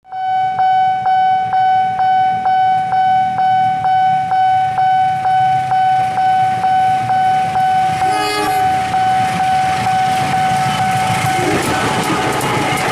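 Railroad crossing alarm ringing steadily, pulsing about twice a second. About eight seconds in, a diesel locomotive sounds a short horn blast. Near the end the locomotive's engine and wheel noise swells as it reaches the crossing.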